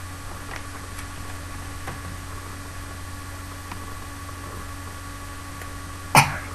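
Steady low hum and hiss, with a few faint ticks and one sharp, loud click near the end.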